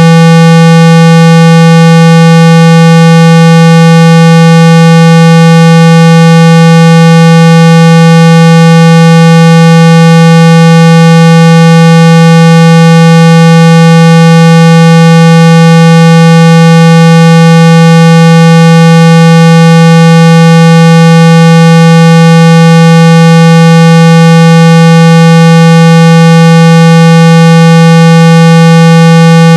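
A loud, steady, unbroken 165 Hz test tone with many overtones, played at full volume to shake dust and water out of a phone speaker.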